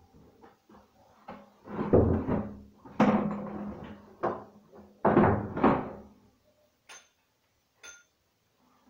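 A run of heavy knocks and thuds at close range, the loudest about two, three and five seconds in, followed by two short, sharp clicks near the end.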